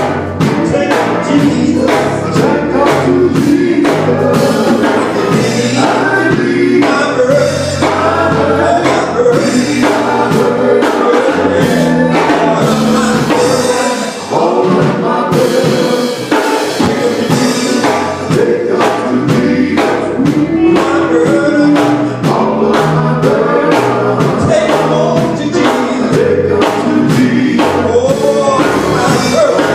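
A live band playing a gospel-style song with a male lead singer and group vocals, over drums at a steady beat.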